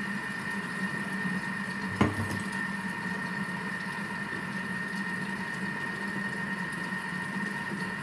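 Thermomix food processor running steadily for about ten seconds, a low motor hum with a steady high whine, its blades turning in reverse at speed 3 to stir chopped vegetables gently into the egg-and-cream quiche batter. A single knock sounds about two seconds in.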